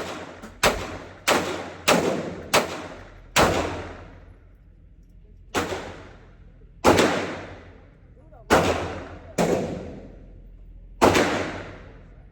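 About eleven gunshots: a quick string of six over the first three and a half seconds, then five more spaced a second or two apart. Each shot is sharp and trails off in a ringing echo.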